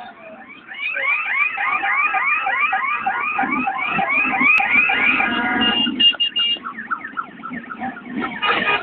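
An electronic siren yelping, quick rising sweeps about three a second, over the low running of motorcycle engines passing by. Past the middle it breaks into a few steady tones, and near the end it turns to a faster warble.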